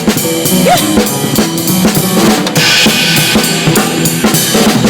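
Live band jamming, led by a drum kit: kick and snare hits with a cymbal wash a little past halfway, over sustained keyboard and bass notes.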